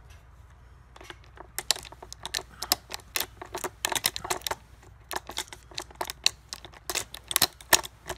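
Metal saw chain clicking and clinking against the guide bar and clutch drum sprocket as it is worked onto a chainsaw by hand: many sharp, irregular clicks in quick clusters, starting about a second in.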